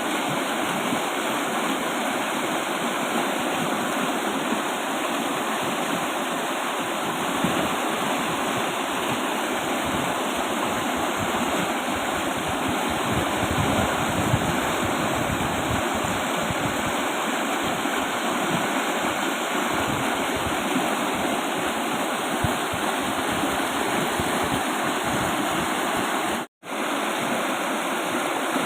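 Fast-flowing river rushing steadily, a dense unbroken noise of water, with the sound cutting out for a split second near the end.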